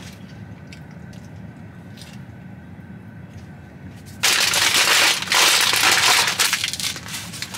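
Paper food wrapper being crinkled and crumpled by hand. It is loud and crackling for about three seconds, starting a little past halfway. Before that there is only a low, steady hum.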